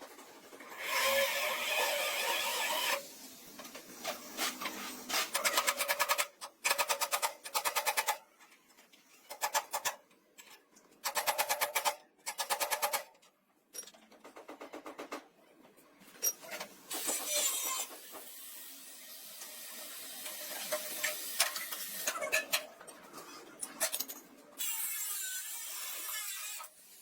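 Metalworking tool noise in short, abruptly cut bursts: hissing, grinding-type noise alternating with runs of rapid, evenly spaced clicking or rattling.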